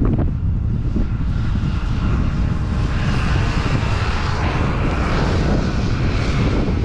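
Wind buffeting the microphone at skiing speed, a steady low rumble, with the hiss of touring skis sliding and scraping over groomed snow swelling from about two seconds in.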